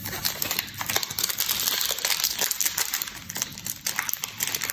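Foil wrapper of a Panini Donruss Optic basketball card pack crinkling steadily as hands turn it over and begin to open it.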